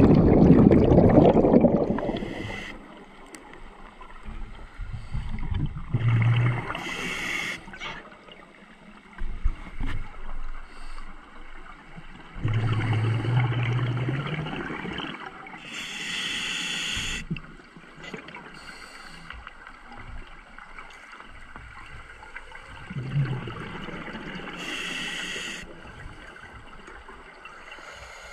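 Scuba regulator breathing heard underwater: slow, spaced breaths, each a low bubbling rumble and a hiss, roughly every six to ten seconds. A loud rush of water and bubbles fills the first two seconds.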